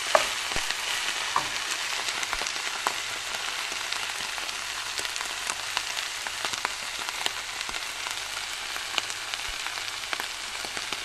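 Sliced oyster mushrooms sizzling steadily as they sauté in a frying pan, their liquid cooked off and the pieces browning. A wooden spoon stirring them gives scattered short scrapes and taps against the pan.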